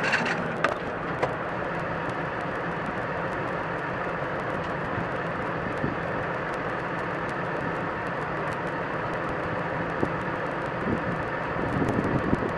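Farm tractor running steadily, heard from inside its closed cab while it pulls a plastic-mulch bed-making implement, with a few light clicks near the start.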